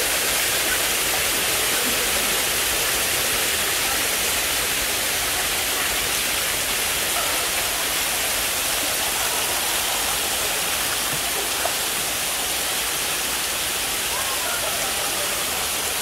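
Waterfall: water pouring steadily over rock and splashing into the pool below, a constant rushing hiss.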